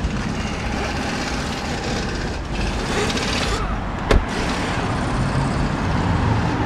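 Steady rushing noise of road traffic passing, with one sharp click about four seconds in.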